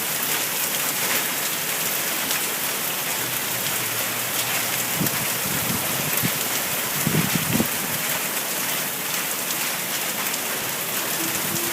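Steady heavy rain falling during a severe thunderstorm, with a few brief low thuds about five and seven seconds in.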